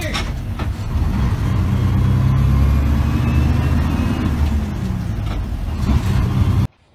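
Semi-truck diesel engine running loudly, heard from inside the cab as the driver works the manual gearbox, with a few light clicks; the engine note glides up and down near the end, then the sound cuts off abruptly.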